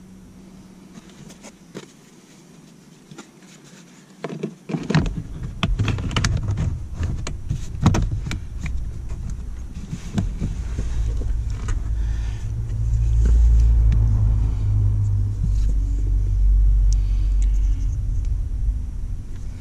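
Plastic footwell side trim panel in a car being fitted back over the fuse box: a run of plastic clicks and knocks starting about five seconds in, then a steady low rumble for most of the rest.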